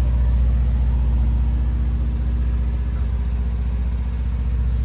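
Marine diesel generator set (20 kW Onan) running steadily in the engine room, a loud, even low hum.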